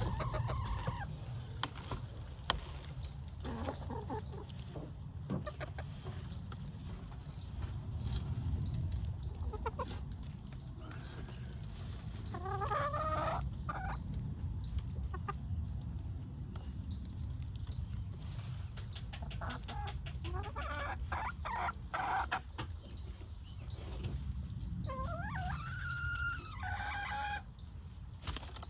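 Backyard hens clucking, with drawn-out calls every few seconds, over a faint repeated high ticking.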